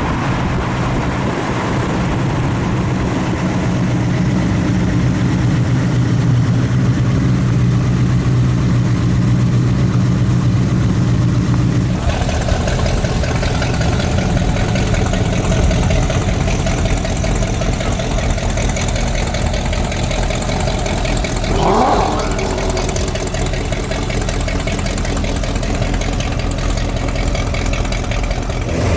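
Muscle car V8 engines idling with a steady low rumble. About twelve seconds in, one engine's sound gives way abruptly to another's, with a short rising blip about two-thirds of the way through.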